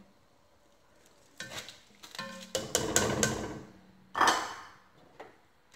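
Washed rice tipped from a metal mesh strainer into boiling chicken stock in an enamel pot: a few clicks of metal on the pot, a rushing splash as the rice goes in about halfway, then a sharp clatter of kitchenware a little later.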